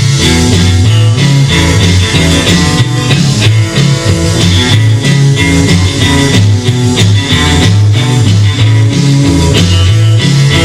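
Rock and roll recording with guitar, a moving bass line and drums.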